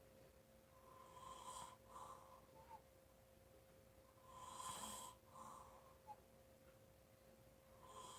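A person snoring and breathing loudly in slow, regular breaths, one about every three and a half seconds. Each breath is a longer rasping part followed by a short one.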